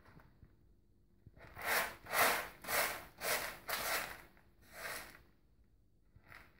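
Cat digging in Cat's Best Eco wood-fibre litter in a plastic litter box: a run of about six scratching strokes, roughly two a second, starting a second or so in, then one short stroke near the end.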